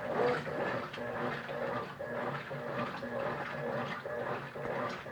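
Consul Facilite 9 kg washing machine running its wash cycle: a steady motor hum with water churning.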